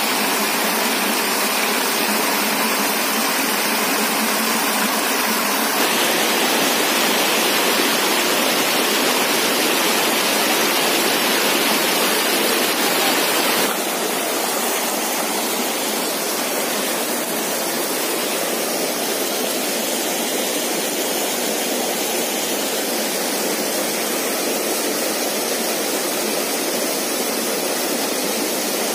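Steady rush of a rocky forest stream and a small waterfall pouring into a pool. The sound shifts abruptly twice, about six and fourteen seconds in, and is a little softer after the second shift.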